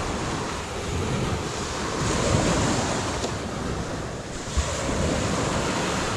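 Sea waves breaking on the shore, swelling and easing, with wind buffeting the microphone. A brief thump about four and a half seconds in.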